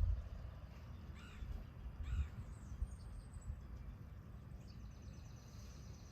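Birds calling: two short harsh calls about one and two seconds in, and a high thin trill near the end, over a low uneven rumble of wind on the microphone.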